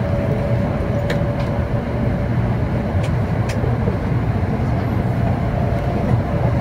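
Steady running noise of a 700 series Shinkansen heard from inside the passenger cabin: a low rumble of the train on the track with a faint steady hum above it and a few light ticks.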